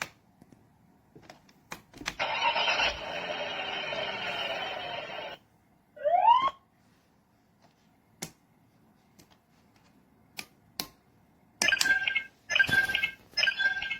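Electronic sound effects and switch clicks from a battery-powered toddler busy board: scattered clicks, a noisy sound effect lasting about three seconds, a short rising tone, then a few more clicks and a quick run of short electronic tones near the end.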